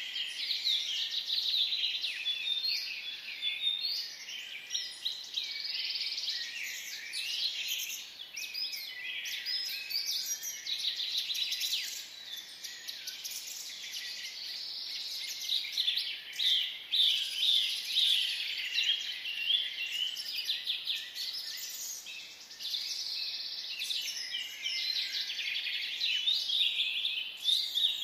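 A chorus of many small birds chirping and twittering over one another without a break, slightly louder about two-thirds of the way through.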